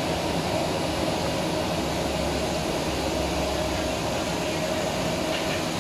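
A steady, even rushing noise with a faint hum in it, without breaks or distinct events.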